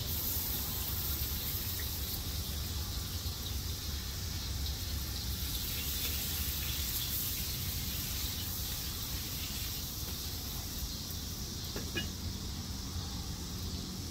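Pieces of precooked ribeye sizzling in very hot oil in a steel wok: a steady high hiss over a low rumble, with a couple of faint clicks.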